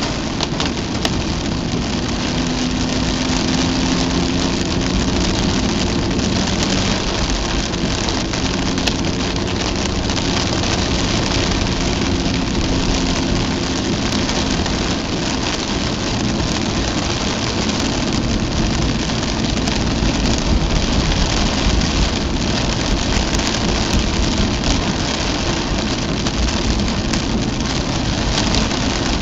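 Cabin noise inside a Mazda RX-8 driving in torrential rain: steady hiss of tyres on the soaked road mixed with rain striking the car, under the hum of the rotary engine. A faint steady engine tone sits under the noise in the first half.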